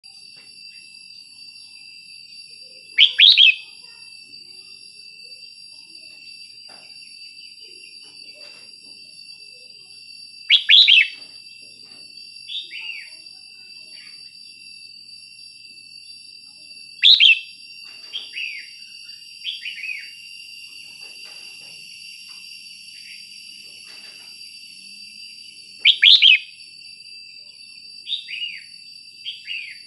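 Red-whiskered bulbul singing: four loud, short warbled phrases spaced several seconds apart, some followed by a few softer falling notes, over a faint steady high whine.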